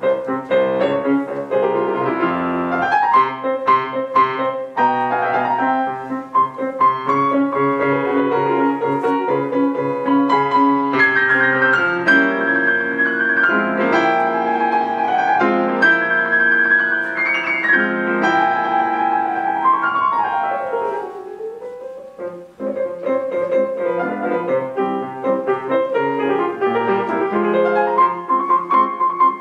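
Piano music in a classical style, with a second melody line that slides smoothly in pitch above the piano around the middle and again about two-thirds of the way through.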